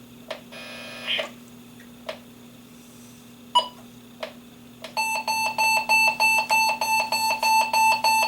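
Electronic alert alarm beeping rapidly, about three beeps a second, starting about five seconds in. Before it there are a few clicks and a short buzzy burst about a second in, over a steady low hum.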